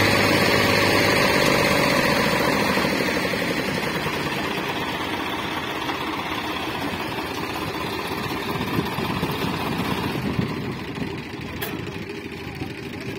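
Swaraj tractor diesel engine running, easing down from high revs and getting quieter over the first few seconds, then running on at a lower, uneven speed. A single sharp click sounds near the end.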